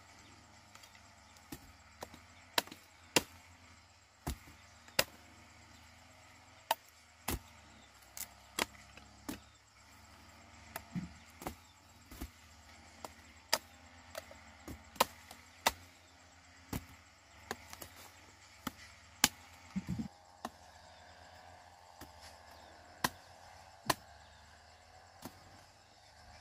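Repeated sharp chopping knocks on wood at an uneven pace, about one or two a second.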